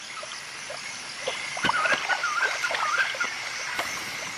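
Forest elephants sloshing and splashing faintly in a mineral mud pool, over a steady high insect hum. A short warbling call sounds from about two to three seconds in.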